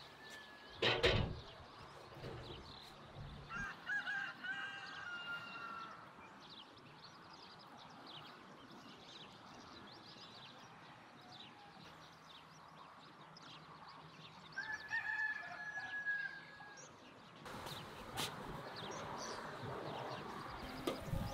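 A rooster crowing twice, each crow about two seconds long, the first a few seconds in and the second past the middle, over scattered small clicks. A single sharp knock about a second in is the loudest sound.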